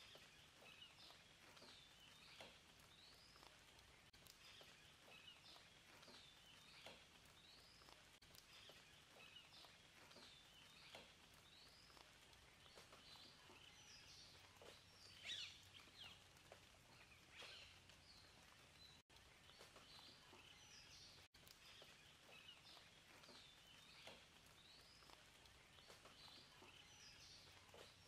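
Faint birdsong: many short chirping calls that rise and fall in pitch, coming about once a second, over a quiet background hiss with an occasional faint tick. The sound drops out twice, briefly, past the middle.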